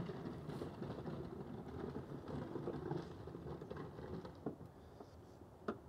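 Wires and plastic crimp connectors being handled, giving light rustles and small clicks, with one sharp click near the end. A low rumble in the background fades after about three seconds.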